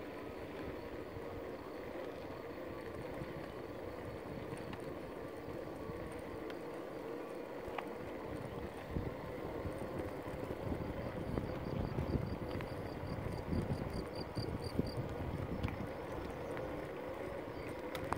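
Small electric wheels rolling on an asphalt lane: steady tyre noise with a faint steady hum. Wind buffets the microphone in gusts from about halfway through.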